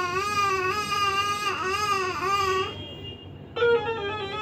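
A recorded baby crying, played through a phone speaker as a listening-test sound, with a wavering wail that stops about two and a half seconds in. About a second later a steady held musical tone begins and carries on.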